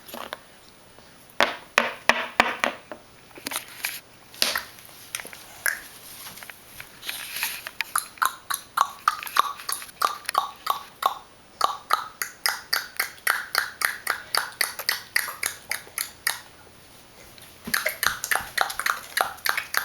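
A person making quick clicking mouth noises to a pet: a few scattered clicks, then a steady run of about three or four a second, a short pause, and another run near the end.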